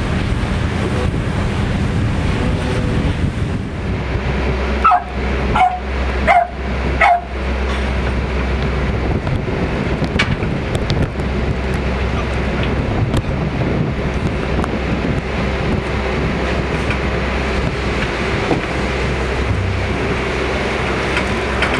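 Small white dog barking four times in quick succession, each bark short and falling in pitch, over a steady low hum.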